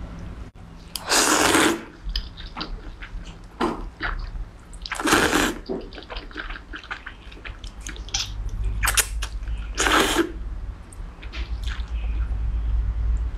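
Noodles slurped up from a bowl of broth: three long, loud slurps about four seconds apart, with small wet chewing clicks between them.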